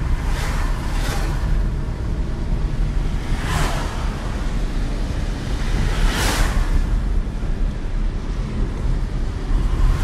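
Road and wind noise inside a moving car: a steady low rumble, with brief whooshes of oncoming cars passing, the clearest about three and a half and six seconds in.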